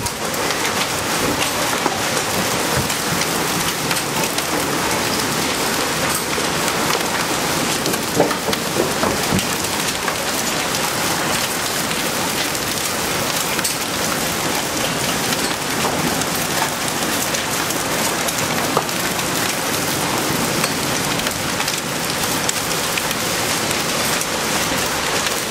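Heavy rain mixed with small hail beating on concrete and bare ground: a steady hiss thick with fine ticking impacts.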